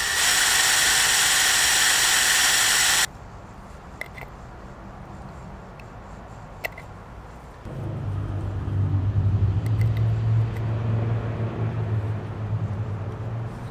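Cordless drill boring a hole through a black ABS plastic end cap for the Schrader valve: a loud, steady whir for about three seconds that cuts off suddenly. A few small clicks of handling follow, then about eight seconds in a steady low rumble sets in and carries on.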